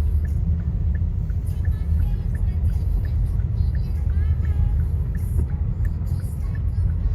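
Steady low rumble of a car driving through a blizzard, heard from inside the cabin: tyre and wind noise.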